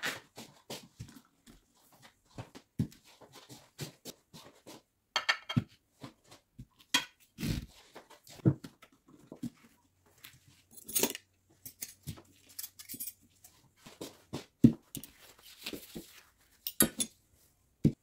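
Glasses, plates and cutlery set down one at a time on a table: scattered clinks and knocks with quiet gaps between.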